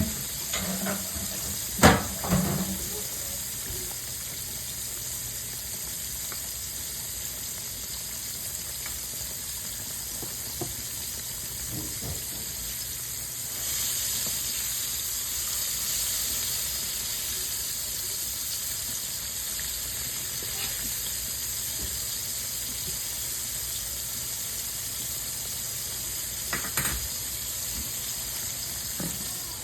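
Food frying in hot oil in a pan, a steady sizzle that swells for a few seconds about halfway through. A sharp knock sounds about two seconds in, and a lighter one near the end.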